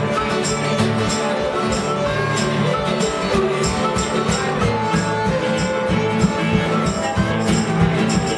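Acoustic string band jamming: several acoustic guitars strum a steady beat while a fiddle plays along over them.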